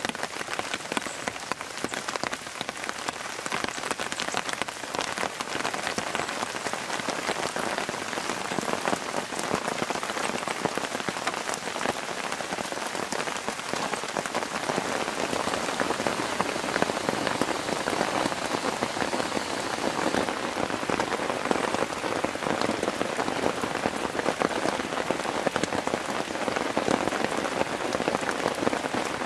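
Steady rain pattering on the tent fabric, a dense, even patter of drops.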